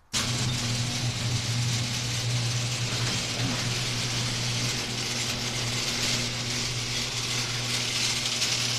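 An electric motor-driven mechanism starting abruptly and running steadily, with a low hum and a mechanical rattle.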